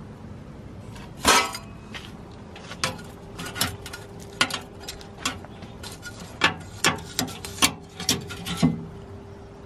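Metal spatula clinking and scraping against a barrel smoker's wire grill rack as smoked fish is lifted off: a loud ringing clang about a second in, then a string of sharp clinks and taps.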